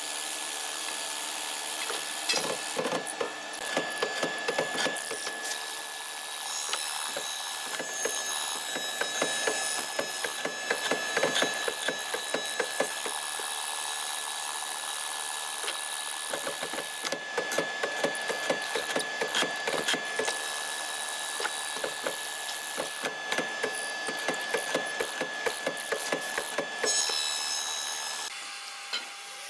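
Hollow-chisel mortiser running with a steady motor whine. Its square chisel and auger bit are plunged into a wooden beam in several bouts of rapid chewing and knocking as the mortises are cut. The motor cuts off near the end.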